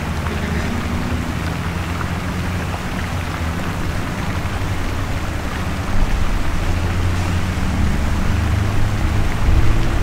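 Busy city traffic: engines of passing vehicles over a steady wash of road noise, growing louder about six seconds in as a vehicle comes close.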